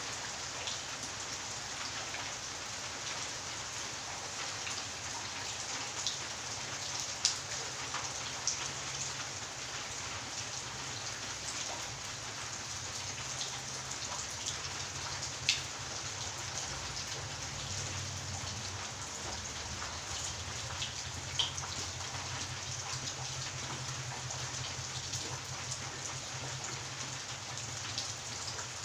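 Steady rain falling on a garden and wet paving, an even hiss with sharp single drops landing close by every few seconds.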